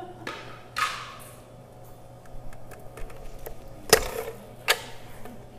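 Gouda wedges being handled and cut on a plastic wire cheese-cutting board: a short scrape, small ticks, and two sharp knocks just under a second apart near the end, the first the loudest.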